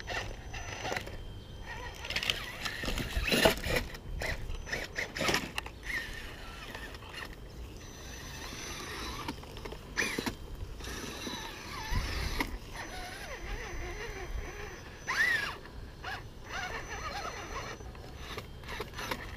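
Axial RR10 Bomber RC rock crawler with a Tekin brushless motor, its motor and gear drivetrain whining in short bursts as it climbs over logs. Irregular clicks and knocks of the tires and chassis on the wood run through it, the loudest about three and a half seconds in.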